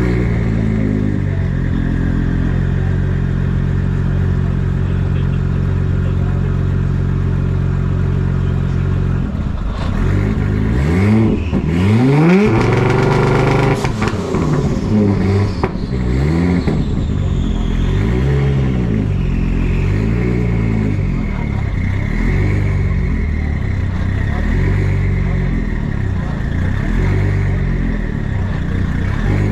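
A car engine running steadily, then revved hard, with its pitch rising and falling over and over in quick blips.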